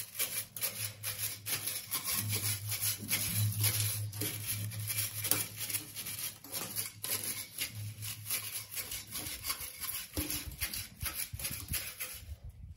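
Soft fibre broom sweeping dust and grit off a tiled window ledge and metal window bars, in quick, repeated scratchy brushing strokes.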